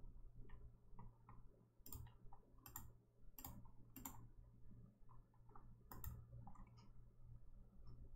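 Near silence with a faint steady low hum, broken by a handful of sharp clicks, about five, spread over the middle of the stretch.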